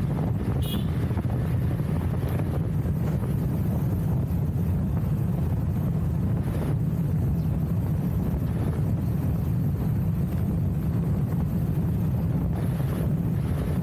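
Steady wind buffeting the microphone of a moving motorcycle, a low, even roar with road and vehicle noise underneath and a few faint knocks.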